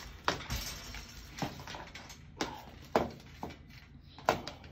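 Irregular sharp clicks and knocks, about seven of them, as tangled power and motor cords and their plastic connectors are handled against the metal frame of an electric hospital bed.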